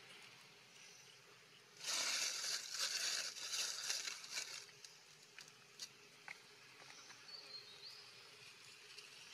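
A burst of close rustling and crackling, dry leaf litter being scuffled right by the microphone, starting about two seconds in and lasting two to three seconds. A few faint clicks and a short high chirp follow near the end.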